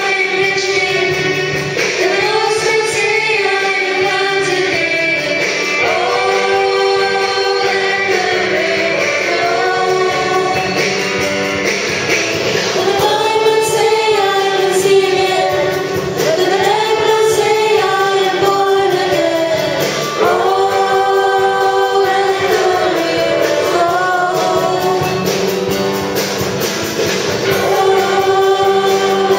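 Choir singing a hymn in arching phrases of about two seconds each, over steady held notes.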